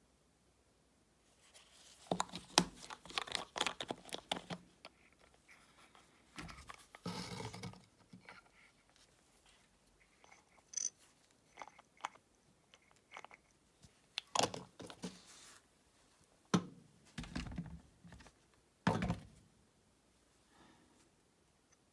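Gloved hands handling a plastic bottle of soldering flux and its brush-in-cap applicator: clicks, knocks and rustling. There is a dense cluster of clicks early on, then scattered clicks, and a few heavier knocks near the end.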